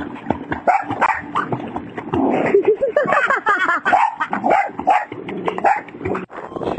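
A boxer dog barking and yipping again and again, with a woman laughing, the calls coming quickest and loudest in the middle.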